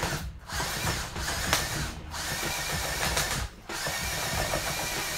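Power drill with a step drill bit cutting through the plastic case of a portable turntable, the motor running in spurts with three brief stops as the trigger is let off and squeezed again.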